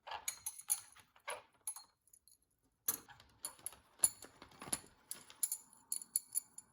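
Irregular light clicks and small metallic jingles from small hard objects being handled and tapped together.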